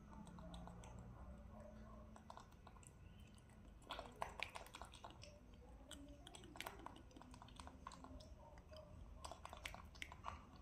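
Baby macaque chewing and biting cherry tomatoes: faint wet clicking mouth sounds, in bursts about four seconds in and again near the end.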